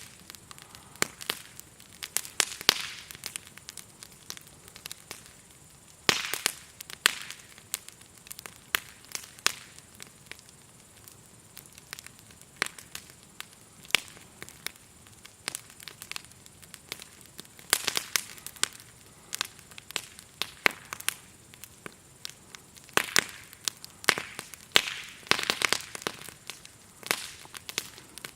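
Wood fire crackling and popping in irregular bursts, some pops sharp and loud. Behind it is a faint, steady high-pitched buzz of grasshoppers chirring.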